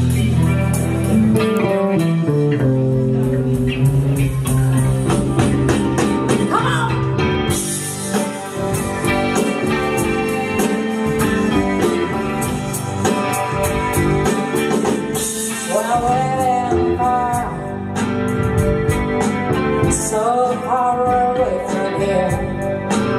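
Live band playing a song: electric guitar over bass guitar and drums, heard loud through the room's amplification.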